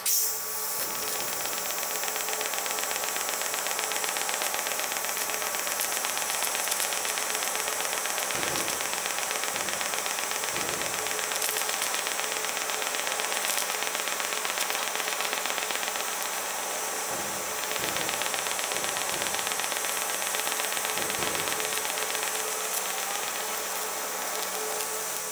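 TIG welding arc on DC electrode negative, running flat out at 200 amps while cast iron filler rod is fed into a ground-out crack in a cast iron bracket. It makes a steady hiss that starts as the arc strikes at the very beginning.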